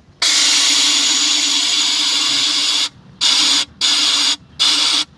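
Compressed air hissing through a hydraulic line: one long blast of about three seconds, then three short blasts. The air is being blown in to test whether the line, suspected of being blocked, lets it pass.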